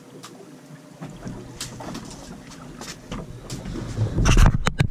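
Low rumble of wind buffeting the camera microphone on an open boat, with scattered small clicks, building about four seconds in to a few loud bumps as the camera is handled.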